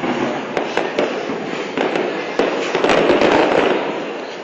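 Aerial fireworks bursting: a rapid, continuous run of sharp pops and crackles, growing denser and louder about three seconds in before easing off near the end.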